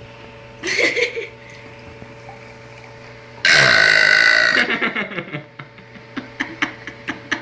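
A girl burping: a short burp about half a second in, then a long, loud burp starting about three and a half seconds in and lasting over a second. A few short clicks follow near the end.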